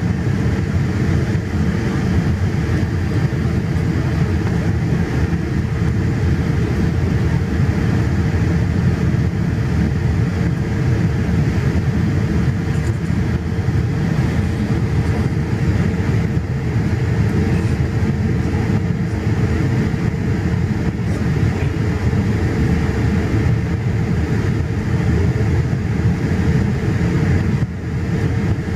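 Steady engine and airflow noise inside the cabin of a Boeing 787 Dreamliner, heard from a window seat over the wing: mostly a deep rumble with a faint steady hum. The level dips briefly near the end.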